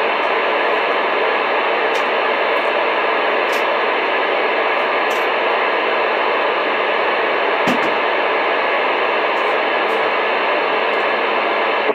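CB radio receiver putting out steady static hiss through its speaker, with no strong station on the channel. A few faint clicks come through the hiss.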